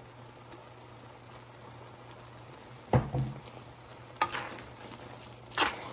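Metal spatula stirring and scraping rice noodles and vegetables in a nonstick wok, with a faint sizzle of frying. Three sharp scrapes or knocks against the pan, the first about three seconds in, over a steady low hum.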